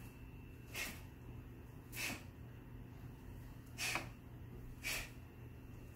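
Four short, sharp breaths forced out through the nose, one with each strike or kick of a taekwondo form, irregularly spaced over a faint steady hum.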